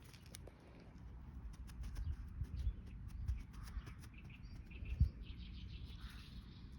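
Outdoor ambience with faint bird chirps over a low rumble, and a single thump about five seconds in.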